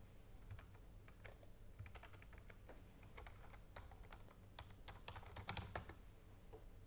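Faint typing on a computer keyboard: a run of separate key clicks, with a quicker, louder cluster of keystrokes about five seconds in.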